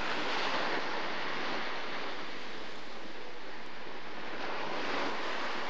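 Ocean surf breaking and washing in around the waders' legs, a steady rushing hiss that swells near the start and again about four and a half seconds in.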